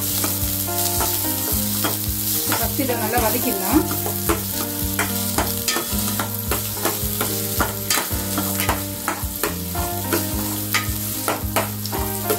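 Chopped onions sautéing in hot oil in a stainless steel kadai with a light sizzle. A plastic spatula stirs them, scraping and clicking irregularly against the steel pan.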